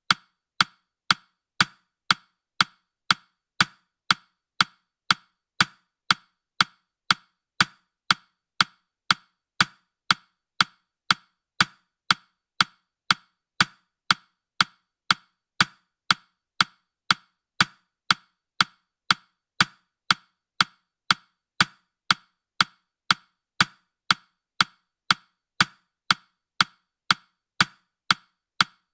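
Clock-tick sound effect of a countdown timer: short, sharp, even ticks at about two per second.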